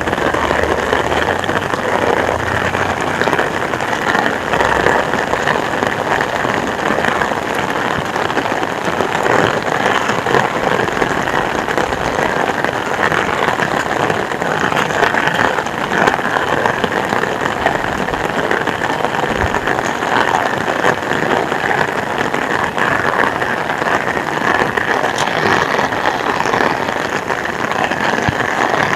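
Heavy rain falling steadily. A low engine rumble fades out in the first few seconds.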